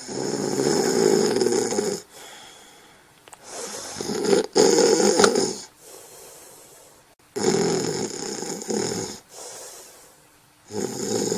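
Snoring: four loud, drawn-out snores about three and a half seconds apart, each lasting roughly two seconds, with quieter breathing gaps between.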